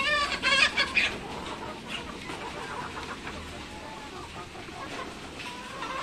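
A flock of laying hens clucking, with one loud, wavering call in about the first second, then quieter scattered clucks.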